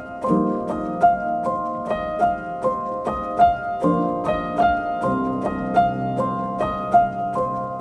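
Calm instrumental music: a quick, repeating pattern of piano- or harp-like high notes over held lower chords that change every second or so.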